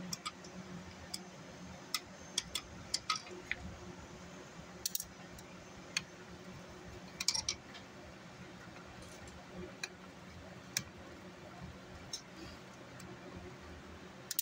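Screwdriver turning screws out of a car amplifier's heatsink: scattered light metallic clicks and ticks at irregular intervals, over a faint steady hum.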